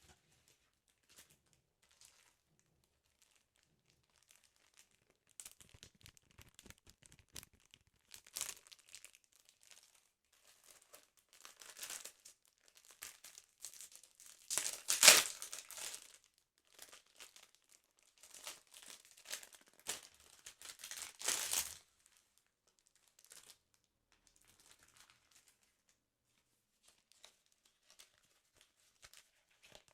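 Paper of a sticker album being torn and crumpled close to the microphone, in irregular rustling bursts, loudest about halfway through, then only faint handling for the last several seconds.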